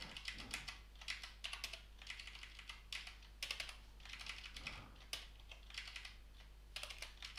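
Computer keyboard typing: faint, irregular keystroke clicks in short runs with brief pauses.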